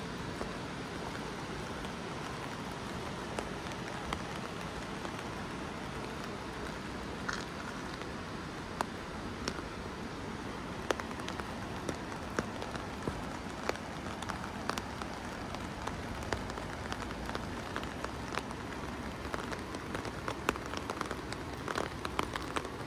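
Steady rain falling, with individual raindrops tapping sharply close by at irregular moments, more often in the second half.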